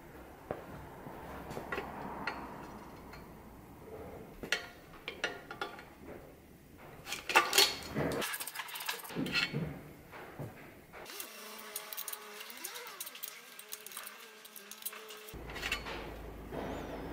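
Metal clinks, knocks and scraping as a vintage Peugeot bicycle's bottom bracket is taken apart by hand: the spindle is drawn out and an open-ended spanner works the cup out of the steel frame's shell. The sharpest clinks come about halfway through.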